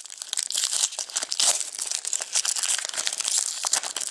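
Shiny foil wrapper of a Panini Crown Royale hockey card pack crinkling and tearing as it is pulled open by hand, a dense run of sharp crackles.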